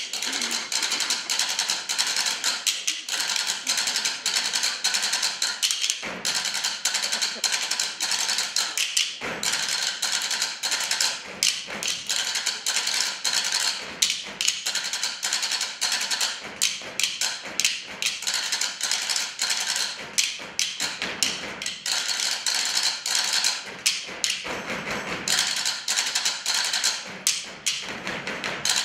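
Table-top percussion: wooden spoons and hands striking tabletops in a fast, busy rhythm of sharp wooden taps and thuds by several players at once.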